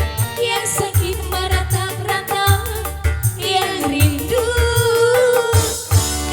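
Live dangdut song from an organ-tunggal band: a keyboard-led melody over a steady bass and drum beat.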